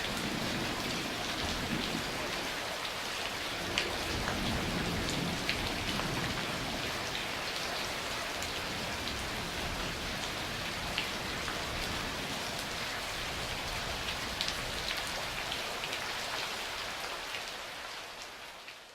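Steady rain falling on a surface, with scattered sharp drop ticks and a low thunder rumble in the first few seconds. The rain fades out near the end.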